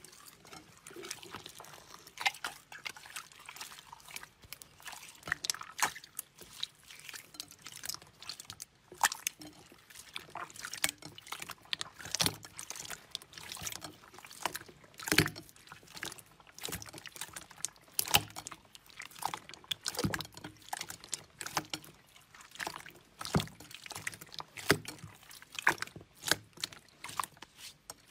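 Hands kneading and squeezing wet slime packed with small beads: a steady run of irregular squelches, sticky clicks and little pops.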